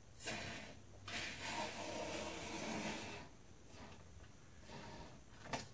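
Can of latex spray foam hissing as foam is pushed out through its straw nozzle: a short spurt, then a longer one lasting about two seconds. A light click near the end.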